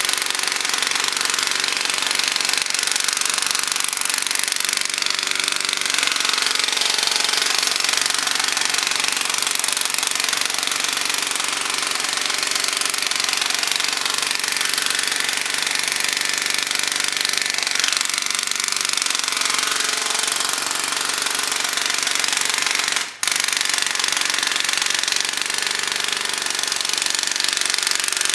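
Jackhammer hammering at roadwork in a continuous rapid chatter, stopping for a split second about 23 seconds in, with heavy equipment running steadily underneath.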